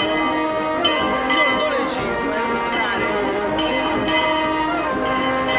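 Church bells ringing a festive peal, one strike after another with long ringing tails, over voices of a crowd.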